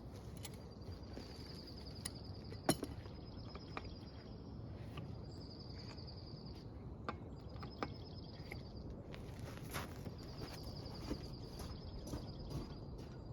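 Insects trilling in repeated high phrases of a second or two, over steady outdoor background noise, with scattered sharp clicks and knocks from hand work, the loudest a single sharp click about three seconds in.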